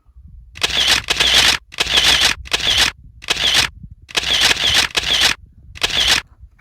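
Camera shutter firing in rapid bursts, six runs of quick clicks separated by short pauses.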